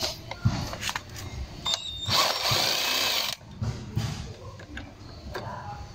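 Cordless power drill with a long screwdriver bit running for about a second, about two seconds in, as it drives out a screw on a scooter's plastic air filter cover. Small clicks and knocks of the tool and the cover sound around it.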